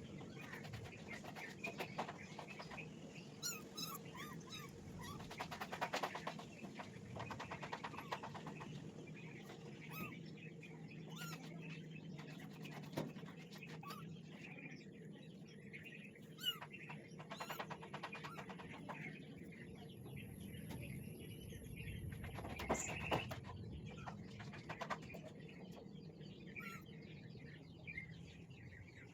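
Small birds chirping faintly and intermittently, with scattered sharp clicks over a low steady hum.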